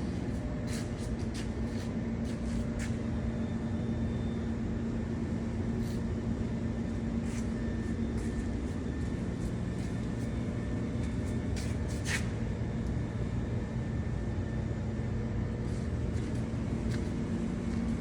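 Stick welding on a steel water tank: a steady hum from the welding machine with the arc's noise, broken by scattered sharp crackles.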